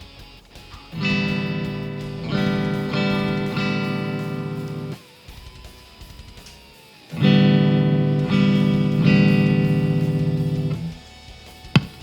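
ESP M2 electric guitar played through an amplifier: two phrases of strummed chords, each a few strikes left ringing and then stopped short, with a pause between them. A sharp click near the end. This is a test playing after a new pickup selector switch was fitted.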